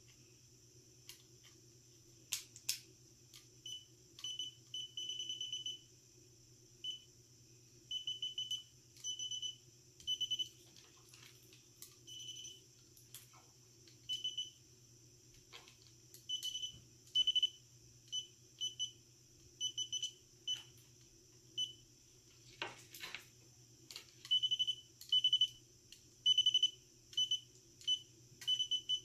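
Gardner Bender holiday light tester in bulb-test mode, beeping in short, irregular high-pitched beeps, singly and in quick runs, as it is moved bulb by bulb along a mini-light string. Light clicks of the tester against the bulbs fall between the beeps.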